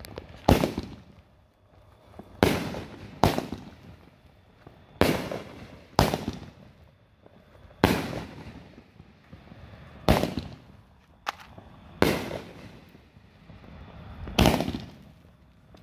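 'Glitter Attack' consumer fireworks cake firing shot after shot: about ten sharp bangs spaced unevenly, roughly one to two and a half seconds apart, each fading out over about a second.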